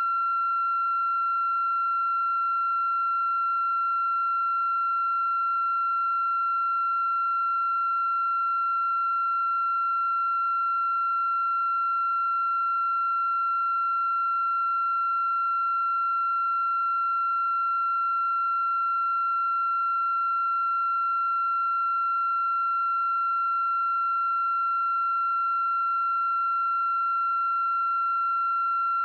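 A steady electronic tone held at one pitch without a break, with faint higher overtones.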